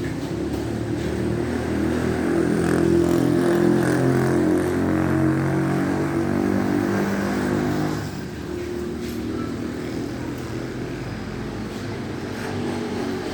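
A motor vehicle's engine running steadily. It gets louder from about two seconds in, then eases off abruptly about eight seconds in.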